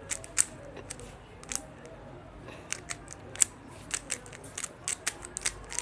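3x3 Rubik's cube being turned by hand: an irregular run of sharp plastic clicks as the layers are twisted, some in quick succession, while the cube is mid-solve.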